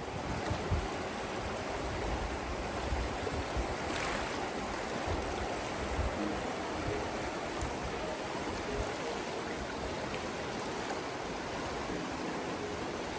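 Steady rushing water, an even hiss with no swells or breaks.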